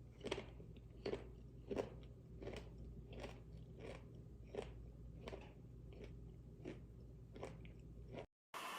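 Someone chewing crunchy food in a steady rhythm, about one crisp crunch every 0.7 seconds, until a sudden cut near the end.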